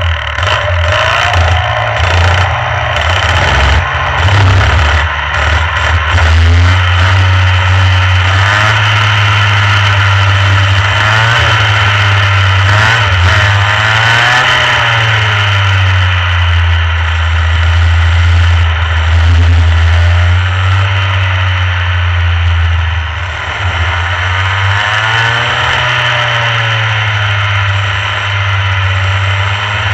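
Rotax Mini Max 125 cc two-stroke kart engine running hard on track, its revs repeatedly climbing and dropping as it accelerates and lifts.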